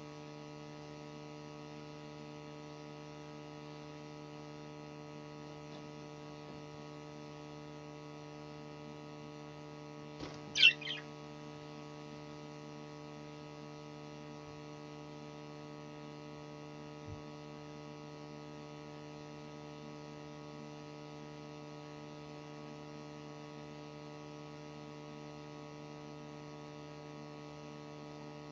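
Steady electrical mains hum, with a single short, high budgerigar chirp about ten seconds in.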